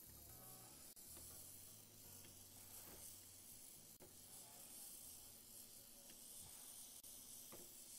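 Faint sizzling of a thick tomato sauce frying in a stainless steel pan as it is stirred with a spatula, with a few faint scrapes of the spatula.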